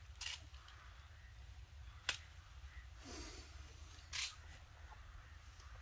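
Faint handling noises: a few short rustling scrapes and one sharp click about two seconds in, over a low steady rumble.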